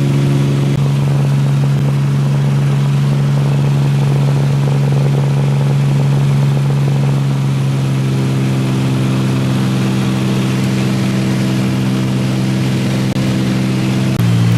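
Small high-wing light aircraft's engine and propeller droning steadily, heard from inside the cabin. Near the end the drone drops slightly in pitch and grows a little louder.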